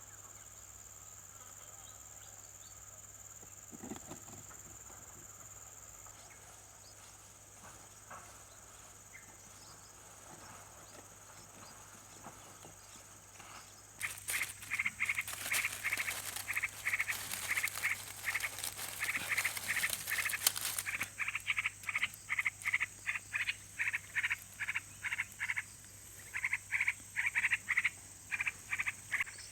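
Insects droning steadily in the background. About halfway in, a rapid run of short repeated animal calls starts, several a second, and keeps going with brief breaks.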